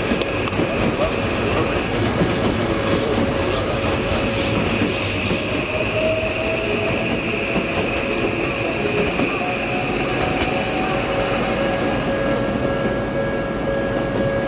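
Odakyu Line electric train running past, its wheels clacking over rail joints for the first few seconds, with a steady high wheel squeal.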